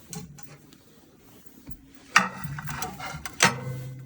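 Hands checking microwave-thawed chicken thighs: a sharp click about two seconds in, a second or so of rustling and handling, then a second knock, after which a low steady hum runs on.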